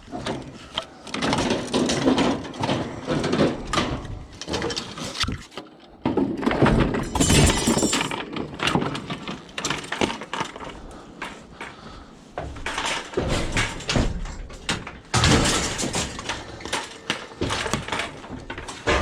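Scrap metal being handled: repeated clanking, knocks and clattering, with a short sharp rattle about halfway through.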